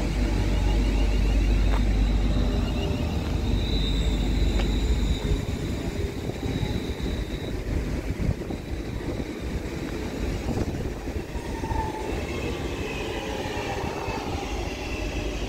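Electric multiple-unit trains on overhead-wire track. A departing unit's low rumble fades over the first five seconds, with a thin high whine for a few seconds. Then a Class 323 electric unit runs in alongside the platform with wheel-on-rail noise.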